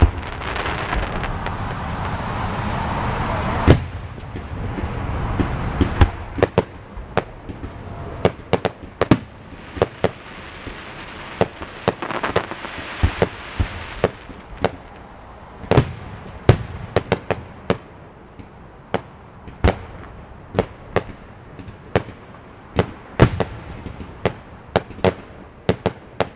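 Aerial fireworks display heard from a few hundred yards away: shells and salutes going off as a quick, irregular run of small sharp pops, often two or three a second. A rushing hiss fills the first few seconds, and the loudest bang comes about four seconds in.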